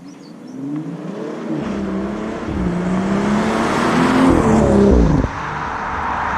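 BMW M140i's turbocharged 3.0-litre straight-six revving up under acceleration through its exhaust, the engine note climbing in pitch and getting louder, then cutting off sharply about five seconds in.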